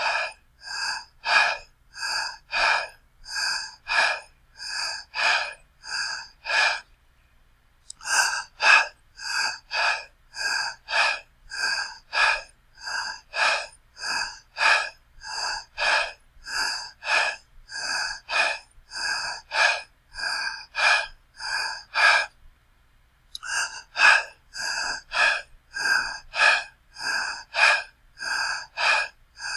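A person breathing fast and heavily: quick, even breaths at about two a second, broken by two short pauses of about a second, one near a quarter of the way in and one about three quarters of the way in.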